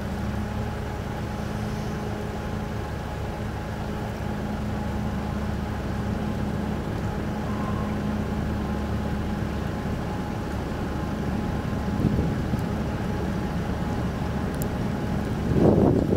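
Car ferry Okesa Maru's engines droning steadily with a low, even hum as it comes alongside to berth. Near the end there is a brief, louder rushing sound.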